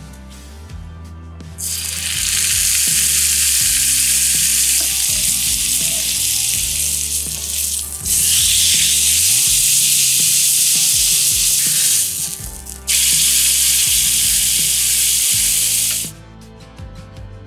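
Block of beef round searing in a hot oiled frying pan: loud sizzling that starts about a second and a half in, breaks off briefly twice, and stops about a second before the end.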